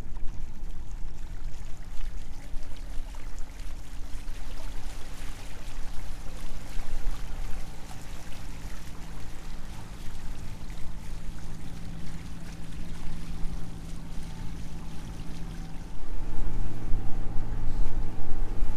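Catamaran motoring on calm water: a steady engine hum with water rushing along the hulls. Near the end the sound steps up louder, with a lower, stronger engine hum.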